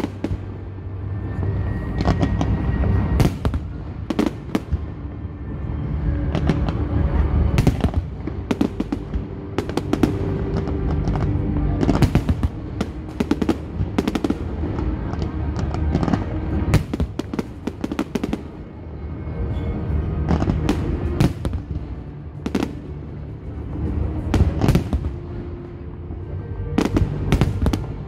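Fireworks display: aerial shells bursting in a dense string of sharp bangs and crackles, many in quick succession, over a continuous low rumble.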